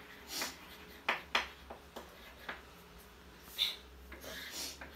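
Chalk writing on a chalkboard: a run of short taps and brief scratchy strokes as the chalk is pressed and dragged across the board.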